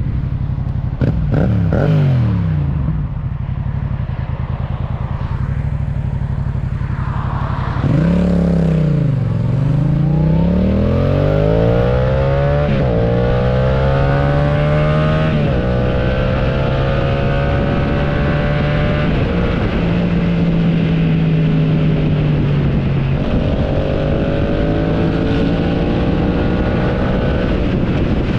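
Motorcycle engine sound, AI-generated along with the video. It slows about a second in and dips again around eight seconds. It then pulls up through the gears, its pitch climbing and dropping briefly at each of four shifts.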